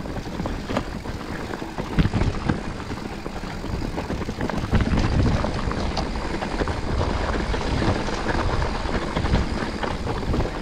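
Mountain bike rolling over a rough, rocky trail: a constant rattle and clatter of tyres and frame, with wind buffeting the action camera's microphone and growing louder about halfway through.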